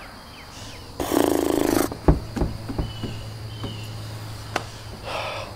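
A raspy groan of just under a second from a man. It is followed by a thud and several lighter knocks on a door.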